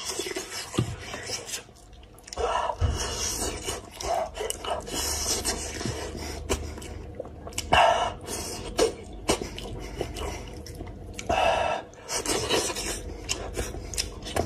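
Close-up eating of spicy braised goat's head: wet chewing and lip-smacking as meat is bitten and sucked off the bone, with several louder slurps.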